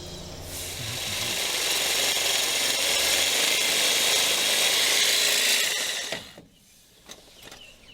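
Power tool with a socket on a shock mounting bolt, running steadily for about six seconds and then stopping.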